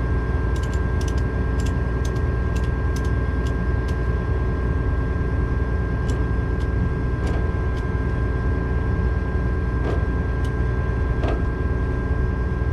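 Combine harvester running steadily: a constant engine drone with a steady high whine, and light scattered ticks, most of them in the first few seconds.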